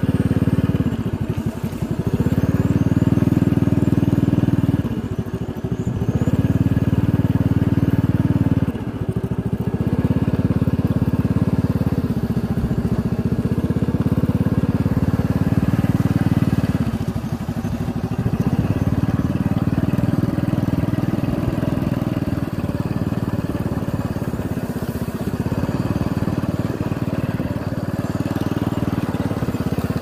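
Motorcycle engine running while riding a rough dirt track. The engine note drops briefly every few seconds as the throttle is eased off, then picks up again.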